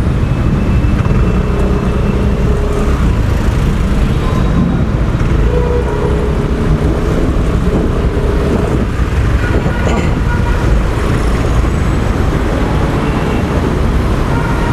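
Steady road traffic noise: vehicle engines and tyres running on the road.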